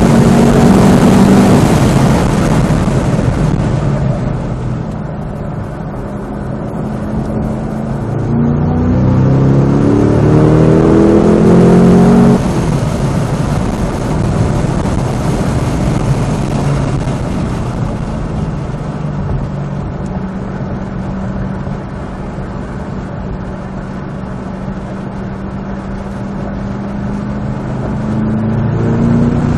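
Cadillac CT5-V Blackwing's supercharged 6.2-litre V8 at speed on track. It runs at high revs, eases off a few seconds in, then pulls hard with a rising pitch from about eight to twelve seconds until the throttle lifts abruptly. It then runs steadily at lower load before revving up again near the end, with road and wind noise throughout.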